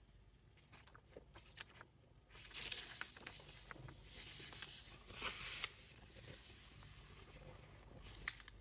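A sheet of paper being handled and folded, rustling and crinkling. A few light ticks come first, then a louder stretch of rustling about two seconds in that dies down after a few seconds.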